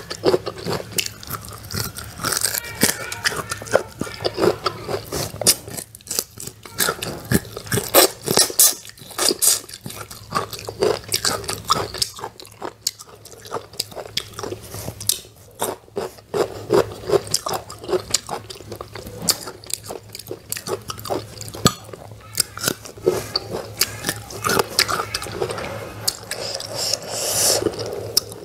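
Close-up crunching and chewing of crisp raw green fruit wedges dressed in chili salt and fish sauce: many sharp, irregular crunchy bites and chews.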